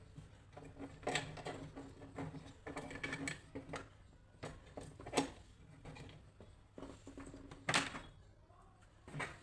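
Irregular clicks and knocks of small plastic parts being handled and worked on during headphone disassembly, the sharpest about five and about seven and a half seconds in. A faint steady hum runs underneath.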